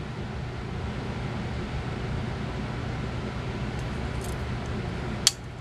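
Steady low background hum and hiss of room air handling, with a single sharp click near the end.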